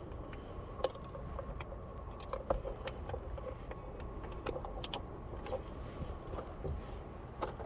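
Scattered light clicks and taps of hands working in a car's cabin, over a low steady rumble, while the horn wiring is readied for a test.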